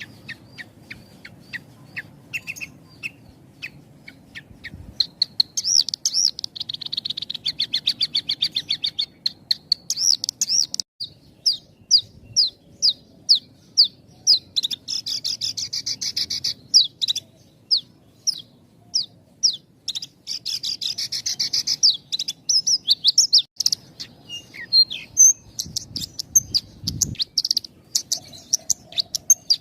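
Javan bush lark (branjangan) singing a fast, nearly unbroken song: a rapid series of high, sharp chirps, packed in places into dense trills, with only short pauses.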